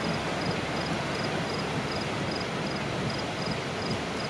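Steady rushing wind noise, with an insect chirping in short, high, evenly spaced pulses, about three a second.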